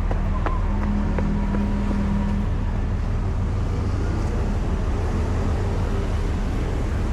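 Steady low rumble of a road vehicle in motion, with a few faint clicks in the first couple of seconds.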